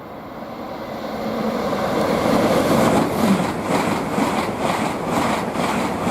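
LNER Azuma high-speed train approaching and passing, growing steadily louder into a rush of wheel and air noise. From about three seconds in, a regular clatter of wheels over rail joints runs through it.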